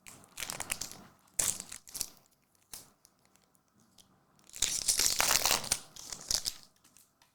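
Foil trading-card pack wrapper crinkling and tearing in several short bursts, the longest lasting over a second, as a pack is opened.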